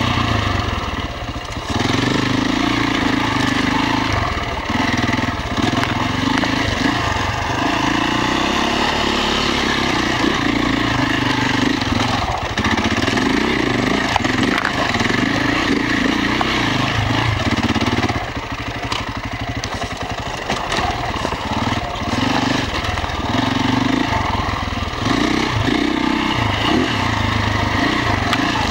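Beta RR 525 enduro motorcycle's single-cylinder four-stroke engine, heard from a camera mounted on the bike, revving up and down as it is ridden over rough ground. The throttle is eased off briefly near the start and again for a couple of seconds about two-thirds of the way through.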